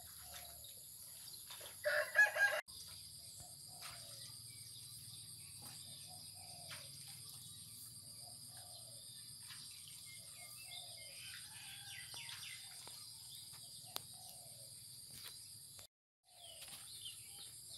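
A rooster crows once, short and loud, about two seconds in. Afterwards come soft scattered clucks and chirps over a steady high whine.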